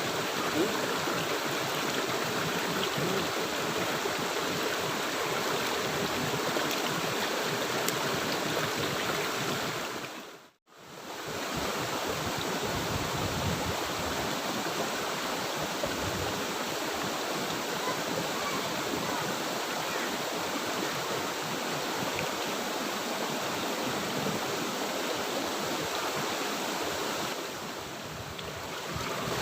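River water running, a steady rushing flow that drops away to nothing for a moment about ten seconds in and then returns.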